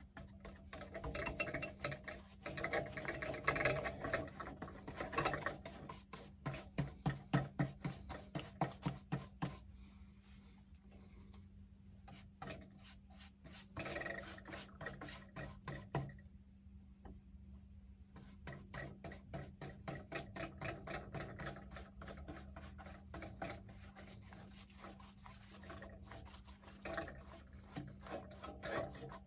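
Paintbrush scrubbing black paint sealer onto a wooden seat board in quick back-and-forth strokes, at times about four strokes a second, with a short pause midway.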